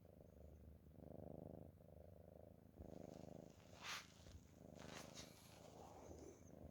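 A cat snoring quietly, a rattling rumble that swells and fades with each breath, about one breath a second. About four seconds in a short sharp hiss of breath stands out above the rumble.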